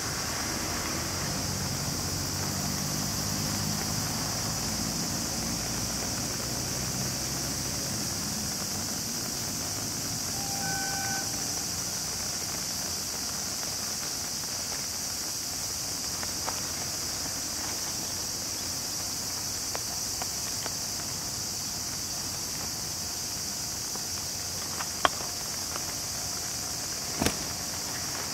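Steady high-pitched drone of summer insects, under a low rumble that fades out about eight seconds in. A brief pitched tone sounds about eleven seconds in, and two sharp clicks come near the end.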